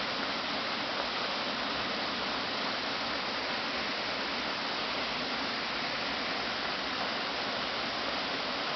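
Steady rushing of stream water, an even hiss that does not change.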